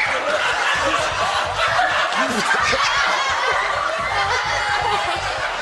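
Several people laughing and snickering at once, overlapping voices.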